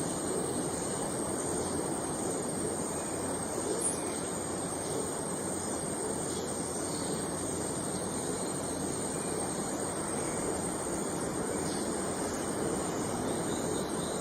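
Outdoor field ambience: a steady rushing background noise with a continuous high-pitched insect trill over it, and no clear bird call.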